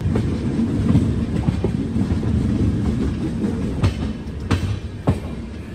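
Double-decker Uday Express train running along the track: a steady low rumble with wheels clacking over the rails, including a few sharp clacks about half a second apart in the second half.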